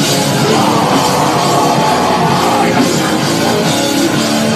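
Loud rock music with drums, in a heavy-metal vein.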